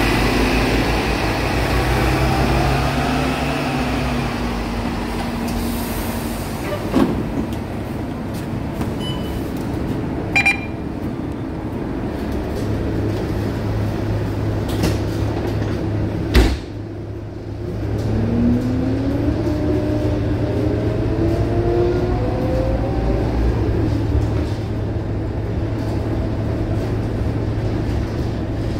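Scania K230UB bus's five-cylinder diesel engine idling, with a short beep about ten seconds in. A sharp thump around sixteen seconds in as the doors close, then the engine note rises as the bus pulls away and accelerates.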